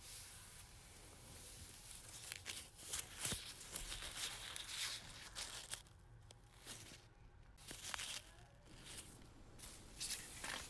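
Paper rustling and tearing in irregular bursts, with sharp crinkling spikes.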